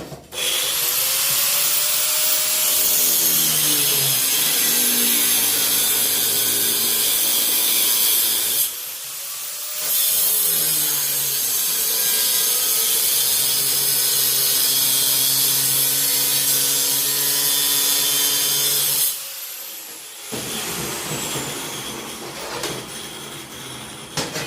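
Power cutting tool spinning up and cutting through 3/4-inch steel angle iron. It pauses briefly about nine seconds in, spins up again and keeps cutting. About nineteen seconds in it shuts off and winds down with a falling whine.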